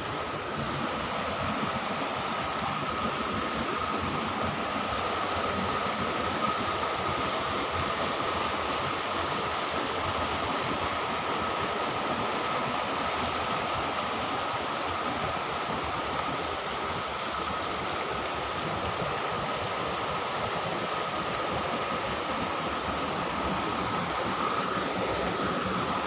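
Steady rush of river water running over a rocky bed, with a thin high-pitched tone held alongside it.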